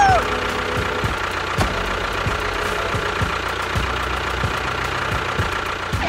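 Tractor engine running steadily, with low, regular knocks a little under twice a second over a constant hum.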